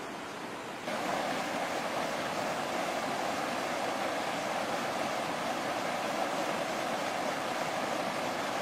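Muddy flash-flood water rushing and churning over rocky rapids, a steady rushing noise that jumps louder about a second in.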